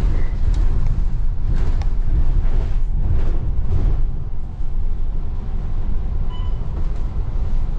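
Inside the cabin of a moving double-decker bus: a steady low engine and road rumble, with short knocks and rattles from the bodywork in the first half, and a brief thin tone about six seconds in.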